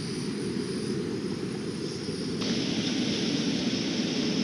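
Small camping gas stove burning steadily under a pot of water being heated, a constant low roar, with a brighter hiss coming in a little past halfway.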